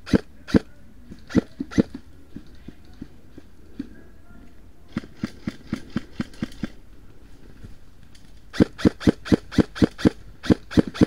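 Airsoft rifle shots: sharp cracks, a few single shots in the first two seconds, a softer quick run about midway, then a fast string of loud shots, about four a second, in the last few seconds.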